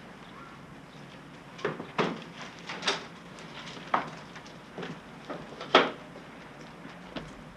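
Irregular knocks and clunks, about eight in all and loudest about six seconds in, from a pair of glass balcony doors being handled as a man steps through them, over a faint steady hum.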